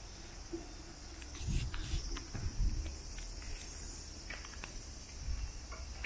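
Cicadas buzzing steadily and high-pitched in the summer heat, with a few low thumps and clicks of footsteps between one and three seconds in.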